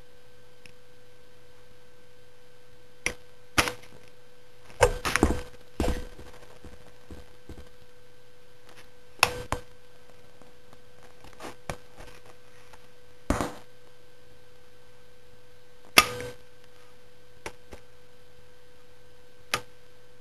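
A steady electrical hum, broken by about ten scattered sharp taps and knocks from hands handling a friendship bracelet as its knots are tied.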